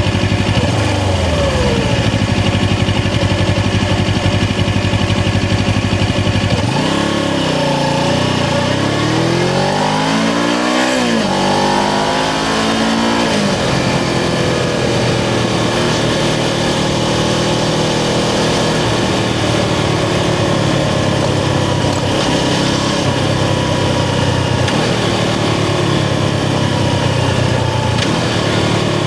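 Suzuki GS500's air-cooled parallel-twin engine running under a riding motorcycle. The note drops near the start and holds steady. Partway through it rises and falls several times as the bike accelerates and shifts gears, then settles into a steady cruising note.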